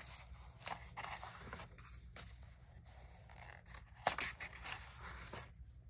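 Pages of a paperback coloring book being turned and smoothed down by hand: soft paper rustling and sliding, with a sharper flick of a page about four seconds in.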